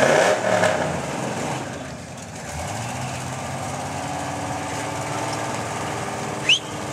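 Off-road vehicle engine running, revved in the first second, dropping back, then climbing in pitch again about two and a half seconds in and holding steady. A short, sharp rising chirp sounds near the end.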